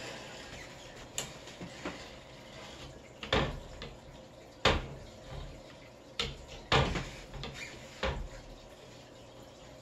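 Spline roller being worked along the channel of an aluminium window-screen frame to seat the new screen, making a series of irregular sharp knocks and clacks against the frame, about seven in all, the loudest a little before five seconds and near seven seconds in.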